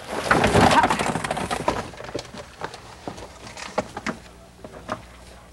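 Shredded newspaper bedding rustling and crackling as it is pulled by hand out of a plastic pet carrier. It is loudest for about the first two seconds, then thins to scattered small clicks and crackles.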